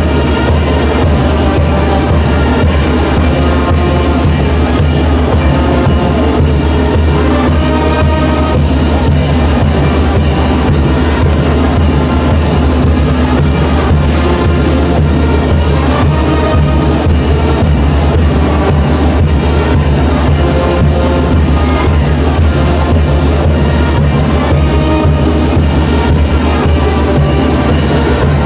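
Live brass band playing chinelo dance music: horns over a steady drum beat, about two to three beats a second, loud and unbroken.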